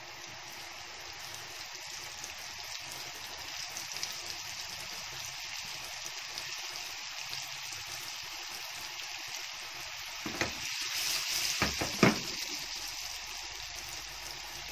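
Flour-dusted chicken kofta balls sizzling as they fry in hot oil in a pan, the sizzle growing slightly louder over the first few seconds. A few sharp knocks and a louder stretch of sizzling come near the end.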